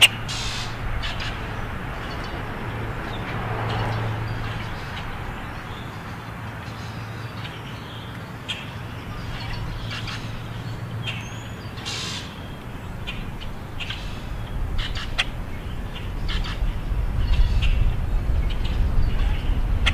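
Blackbirds giving short, scattered chip and chack calls while feeding, over a steady low rumble that grows louder near the end.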